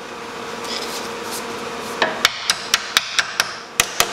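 Hammer tapping a small steel repair plate against the rear spring hanger on a Jeep frame to seat it: a quick run of sharp metallic strikes, about four a second, starting about halfway in.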